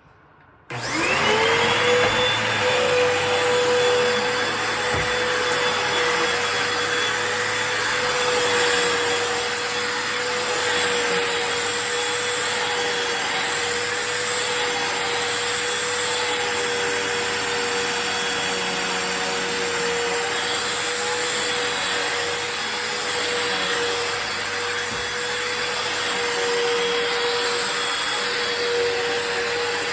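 Hoover WindTunnel 2 Rewind Pet upright vacuum cleaner switched on under a second in, its motor whining up to speed and then running steadily.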